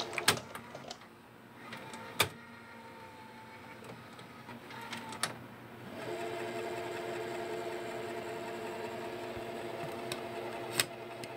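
A steady droning hum of a few held tones, broken by four sharp clicks. The hum drops away soon after the start and comes back steady about six seconds in.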